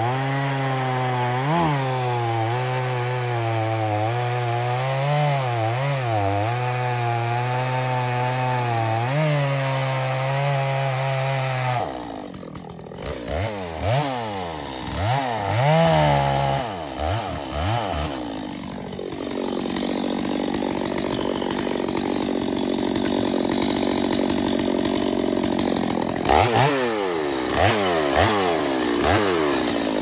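Stihl MS 250 two-stroke chainsaw at full throttle, cutting through a cherry trunk with a sharp chain; the engine note sags and recovers under load. About twelve seconds in it comes off the cut and the throttle is blipped up and down several times. It then runs steadily again, with more quick revs near the end.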